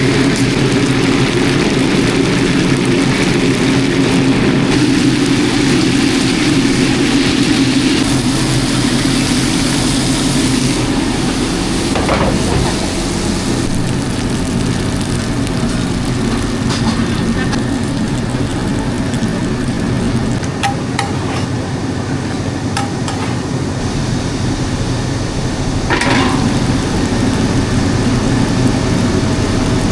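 Pan-fried dumplings sizzling in a flat pan over a constant low roar, with a couple of brief clinks of utensils.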